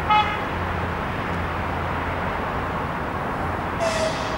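Steady outdoor background rumble of distant traffic, with a very short high-pitched chirp just after the start and a brief call falling slightly in pitch near the end.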